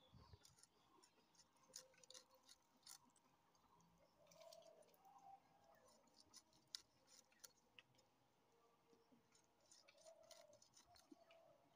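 Faint, scattered clicks and scrapes of fish being cut against an upright curved boti blade.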